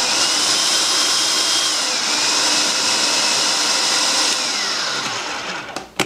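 Food processor motor running at full speed, chopping a packed bowl of mushrooms, cooked garbanzo beans and chopped vegetables into a meatloaf mix. About five seconds in the motor winds down and stops, followed by a sharp click near the end.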